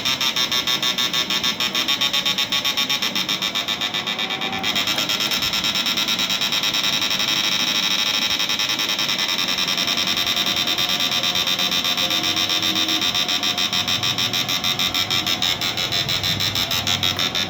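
Electric fishing inverter under test, its output buzzing in a rapid, even pulsing. It grows a little louder and fuller just under five seconds in.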